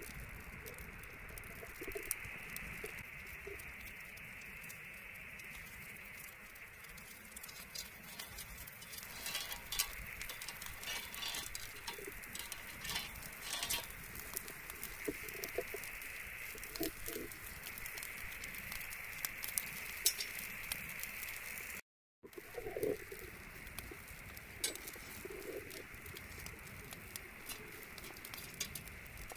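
Wood bonfire crackling and popping in irregular sharp clicks, with a dove cooing now and then in the background. The sound drops out for an instant about three-quarters of the way through.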